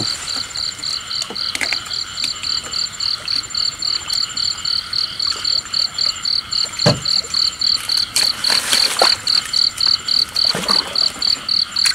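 Night chorus of frogs and insects: a rapid, steady pulsing call about four or five times a second over a continuous trill, with one low knock about seven seconds in.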